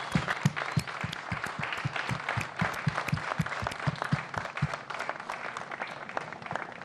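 A group of people applauding. Steady clapping thins out and grows weaker after about five seconds.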